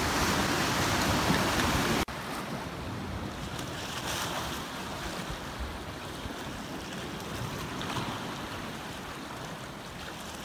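Ocean surf washing against shoreline rocks, with some wind on the microphone. The level drops suddenly about two seconds in, and a softer, steady wash of water continues.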